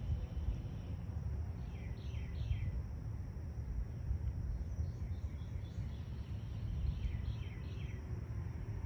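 Outdoor ambience: a songbird sings two phrases of three quick down-slurred notes, about two seconds in and again near the end, with fainter chirps in between, over a steady low rumble.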